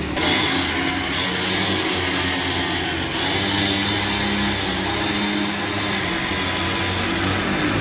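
Electric rotary buffer, an angle grinder fitted with a foam polishing pad, running steadily with a hissing whine as it buffs a scooter's plastic body panel.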